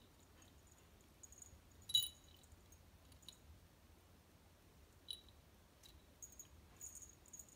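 Cat toy play: faint light clicks and a few small metallic jingles as a tabby cat bats at and bites a wand toy. The loudest is a sharp, ringing clink about two seconds in, with further soft ticks about five seconds in and near the end.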